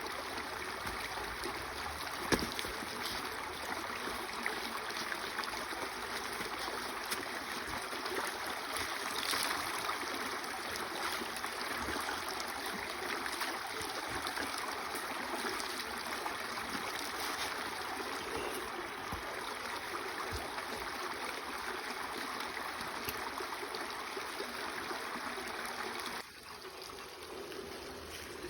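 A small stream running, a steady rush of water that drops off abruptly near the end, with a single sharp knock a couple of seconds in.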